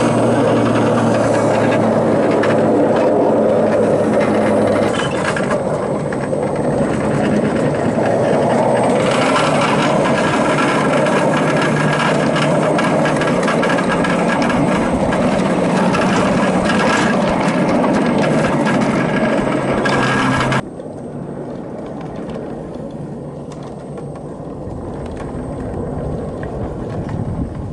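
Battery-electric 5-inch gauge Whitcomb locomotive running along the rails: a steady electric motor and gear hum over the rumble and clatter of wheels on track, its pitch shifting a few times as the speed changes. About twenty seconds in the motor sound cuts off suddenly and the train rolls on more quietly, coasting on the rails.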